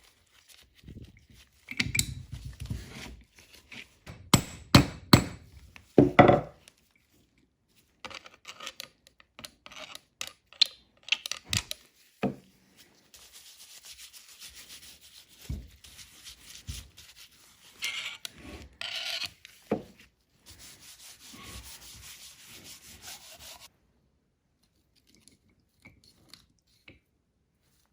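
Metal parts of a cast-iron bench vise being handled and fitted back together after greasing. A cluster of knocks and clunks in the first six seconds is followed by scattered clicks and stretches of scraping and rubbing.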